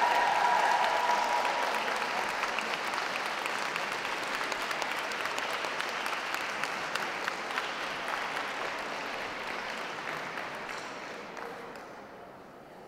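Crowd applauding, loudest at first and dying away over the last few seconds.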